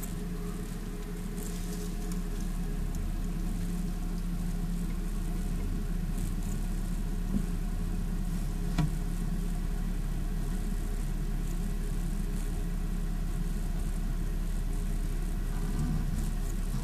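A steady machine hum with several constant tones, with two faint clicks about seven and nine seconds in.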